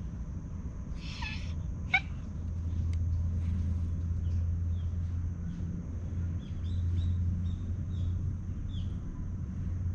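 Steady low outdoor rumble with small birds chirping in short, repeated calls, and a brief harsher call about a second in.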